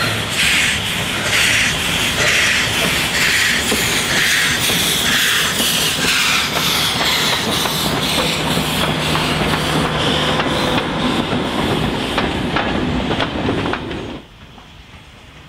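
NSWGR 32 class steam locomotive 3237 passing at close range under steam, with a run of rhythmic exhaust chuffs and steam hiss. Its carriages follow, wheels clicking over the rail joints. The sound drops away sharply about fourteen seconds in.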